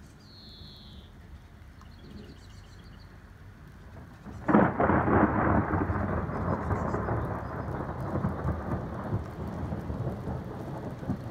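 Thunder following a lightning flash: quiet for the first few seconds, then a sudden loud crack about four and a half seconds in, followed by a long rumble that slowly dies down.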